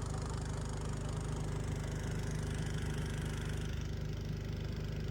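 An engine running steadily at an even speed, with a fast regular low pulsing.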